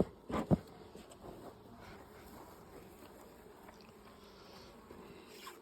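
Two or three sharp knocks in the first half-second as the hive is squared up, then the faint, steady buzz of honeybees around the hive.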